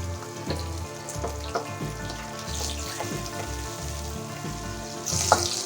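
Ingredients frying in hot oil in a karahi, a steady sizzle with scattered clicks of a spatula against the pan. The sizzle grows louder near the end.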